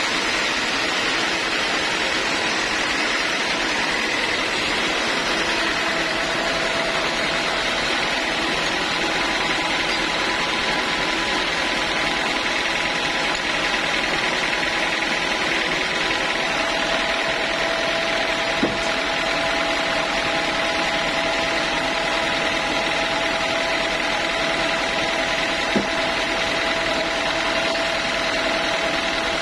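Sawmill machinery running steadily, a constant mechanical hum with a steady whine, and two brief ticks in the second half.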